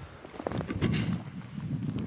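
Footsteps of people walking, a few heavy steps with small clicks and crunches underfoot.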